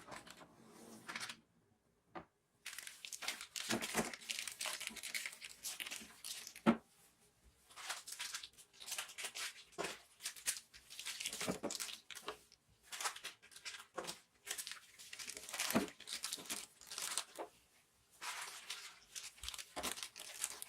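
Plastic packaging crinkling and rustling in repeated spells, with a few sharper snaps and short pauses between handlings.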